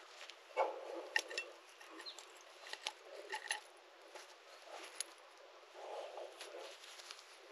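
Faint, scattered clinks of small metal coins and jewellery pieces knocking together as they are handled, a few with a brief metallic ring, with soft handling noise between them.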